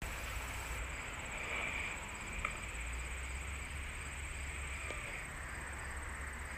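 Outdoor yard ambience: a steady low rumble on the phone microphone under a faint hiss and a thin, steady high whine, with one sharp click about two and a half seconds in.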